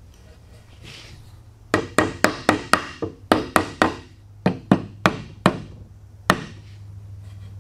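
Wooden mallet striking a tenoned board, driving it into a table leg's mortise to seat the joint. A quick run of sharp wooden knocks, about four a second, then a short pause, a few more blows and a last single one.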